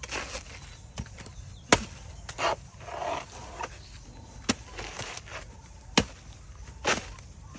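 Blade chopping into a banana tree: sharp chops at uneven intervals, four of them over several seconds, with softer swishing strokes in between.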